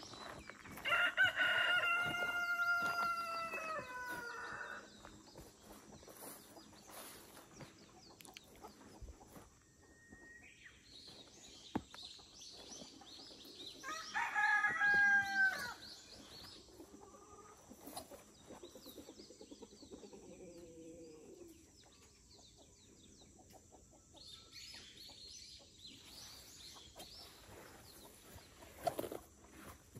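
Rooster crowing twice: a long crow about a second in and a shorter one about halfway through, with small birds chirping faintly between.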